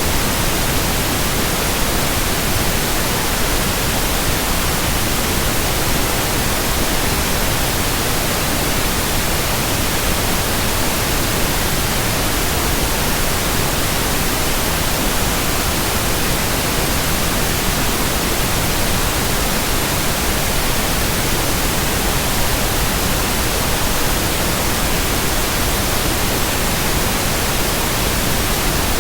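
Steady, unchanging white-noise hiss spread evenly from low to very high pitches, with no hum, rhythm or blade swish to be heard.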